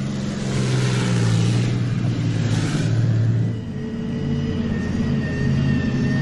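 Armoured vehicle engines running hard under load: a tracked BMP-1 infantry fighting vehicle with a loud rushing clatter over its engine, then, after about three and a half seconds, a wheeled SPW-70 (BTR-70) armoured personnel carrier whose engine noise carries a steady high whine.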